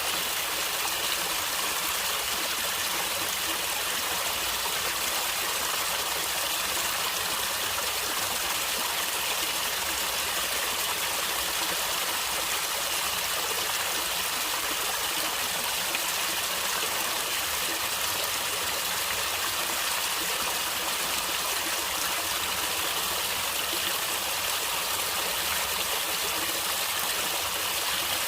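A stream of water flowing and gurgling steadily, with a bright, hissy rush.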